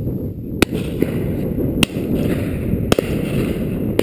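Three sharp shotgun reports from other guns on the shooting line, about a second apart, over steady wind noise on the microphone.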